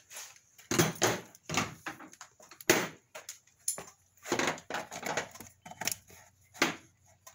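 Irregular rustles and knocks, a dozen or so short noises with gaps between them: handling noise from a phone camera being moved around by hand.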